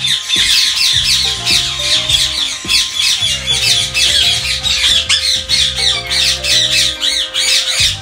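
Indian ringneck parakeets screeching and chattering, many short calls overlapping without a break. Background music with low stepped bass notes and a long held note runs underneath.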